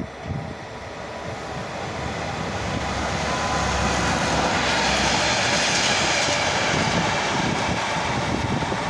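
Adtranz class 220 diesel-electric locomotive hauling a freight train past at close range. Its engine and rolling noise grow louder over the first few seconds, and the train then rolls steadily by at full loudness.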